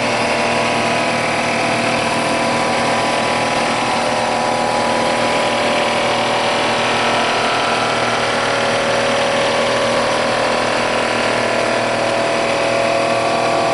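Rottler S85A surfacing machine running a facing cut across an aluminum cylinder head deck, with the cutter spinning as the table feeds. The sound is a steady, unchanging mix of many tones over a cutting noise. The cut is leaving a mirror finish on the deck.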